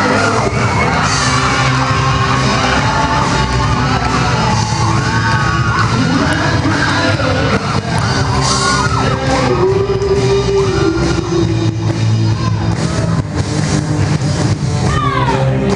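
Live rock band playing with singing, while an audience yells and cheers over the music.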